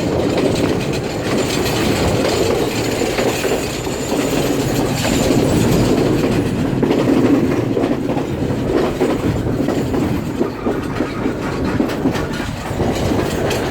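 Train running on the rails, heard from aboard: a steady rumble with the clickety-clack of wheels over rail joints.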